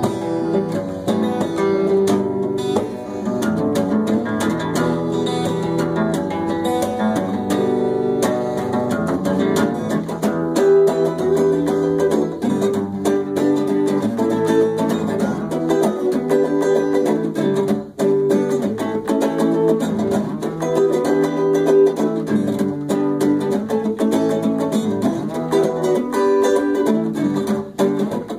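Instrumental break in a song: guitar music plays on with no singing.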